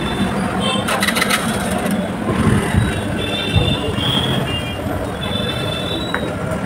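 Masala milk poured in a long stream from one steel jug into another, splashing as it froths, again and again, over steady street traffic and background voices.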